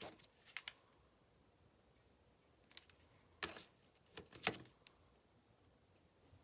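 A few faint, sharp clicks and taps from small craft materials being handled, about half a dozen spread out; the loudest come about three and a half and four and a half seconds in.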